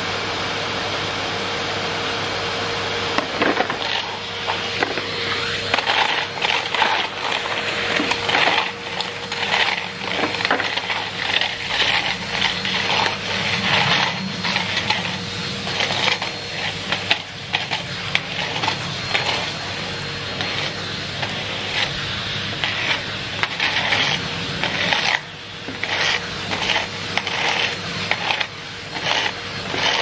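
Numatic Henry vacuum cleaner running with a steady hum. From about three seconds in there is a dense, irregular clatter of grit and debris being sucked up through the hose and wand from the patio paving, with brief lulls near the end.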